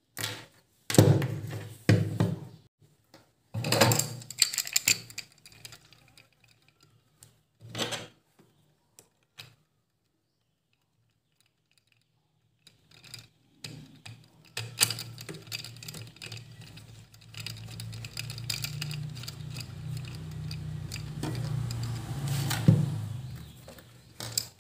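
Hard plastic action-camera mount parts being handled and fitted onto a helmet chin mount: scattered clicks, knocks and rattles, then a longer, steadier stretch of rubbing and handling noise from about fifteen seconds in.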